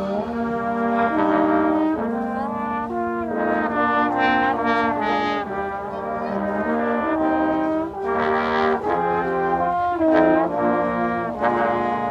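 Brass instruments, trombone-like in tone, playing a tune together in harmony, with notes changing every fraction of a second.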